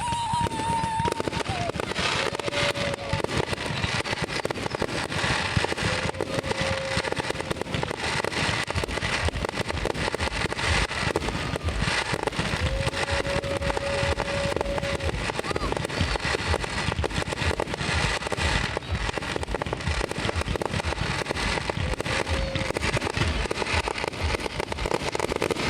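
Fireworks display: a dense, unbroken run of bangs and crackles, with a few short steady tones heard over it now and then.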